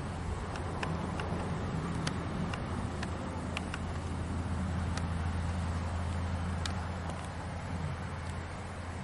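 Low, steady engine rumble that swells around the middle and eases off near the end, with a few faint clicks over it.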